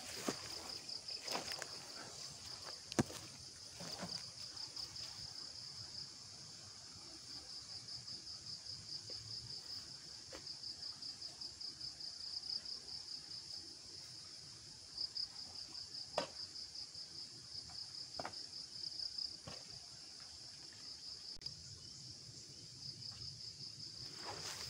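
Crickets chirping in a steady, high-pitched, rapidly pulsing trill, with a few sharp knocks standing out over it.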